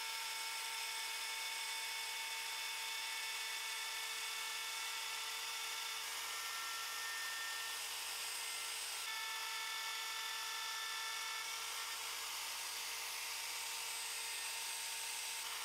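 Plunge router with a 1/4-inch upcut bit running at steady speed while it cuts a groove in wood: an even high-pitched whine over a hiss. The pitch shifts slightly a few times as the cut goes on.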